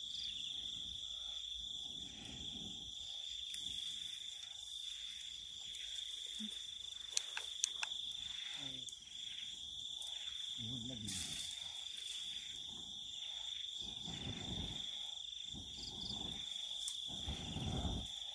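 Insect chorus: one steady, high-pitched drone that holds unbroken, with a few sharp clicks a little past the middle. Low dull rustling and bumping noises come and go underneath and get louder toward the end.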